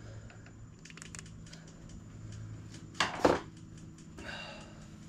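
Small metallic clicks and ticks of a screwdriver working at a motorcycle's carburetor linkage, then two sharp knocks close together about three seconds in, the loudest sounds, and a brief scuffing rustle shortly after, over a faint steady hum.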